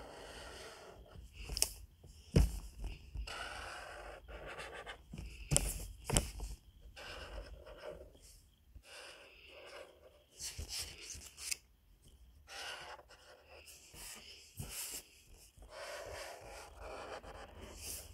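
A marker scratching across paper in short strokes, with several sharp taps and knocks on the table in between.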